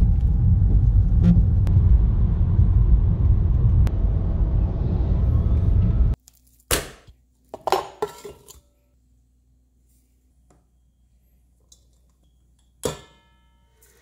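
Loud, steady low rumble inside a car cabin, which cuts off about six seconds in. It is followed by a few sharp clinks and knocks against a stainless-steel stand-mixer bowl as ingredients are tipped in, the last one ringing briefly.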